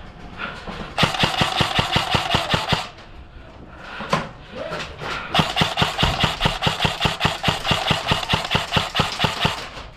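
Airsoft electric gun (AEG) firing on full auto, about ten shots a second, with the gearbox motor whining under the shots. Two bursts: one of about two seconds, then a longer one of about four seconds.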